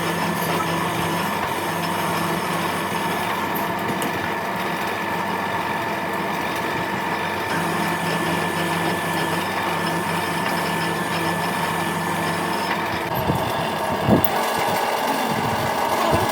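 A motor-driven machine running steadily, holding several constant tones, with a single knock near the end.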